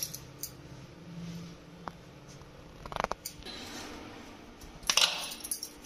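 Hands pressing and working a ball of soft paratha dough in a flour-dusted plate: light clicks and two brief rustling scrapes, about three and five seconds in.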